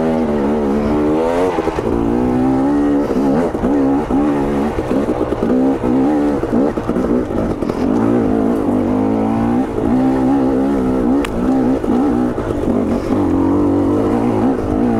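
2022 KTM 250 XC two-stroke dirt bike engine being ridden on a trail, revving up and down continuously with the throttle. Its power valve is freshly tuned.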